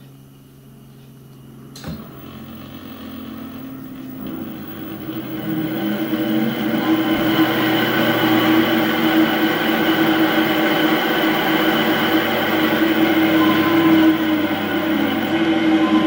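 Repaired Sparta e-bike hub motor, converted from a 24 V rear hub to a 36 V front hub, spinning its wheel free on a stand with a steady electric whine of several pitches. It grows louder over the first six seconds, then holds. A single click comes about two seconds in.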